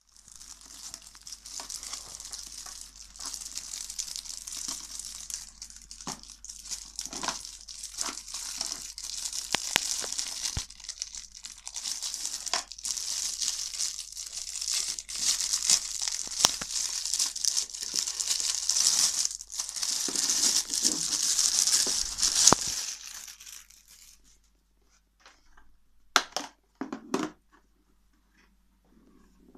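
Clear plastic film wrap crinkling and tearing as it is peeled off a plastic lunch box, stopping a few seconds before the end. Then a few short plastic clicks as the bare box is handled.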